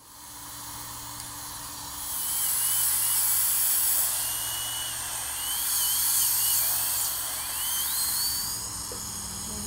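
Dental drill whining as its bur works on a molar, finishing freshly placed composite fillings. The whine starts about two seconds in, wavers and dips in pitch as it cuts, and rises near the end, over a steady hiss.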